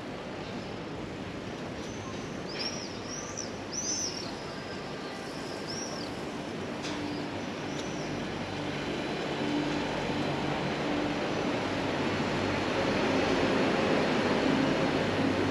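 Steady outdoor background noise that swells over the second half, with a few short, high, arching chirps a few seconds in.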